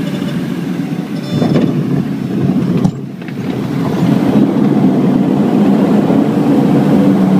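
Cabin noise of a DHC-6 Twin Otter's twin turboprop engines and propellers during the landing roll on a grass runway. The noise drops suddenly about three seconds in, then builds again into a steady hum.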